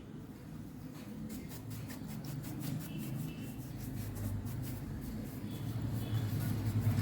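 Low rumble of passing road traffic, growing louder toward the end, with a run of quick scratchy rubbing strokes about a second in.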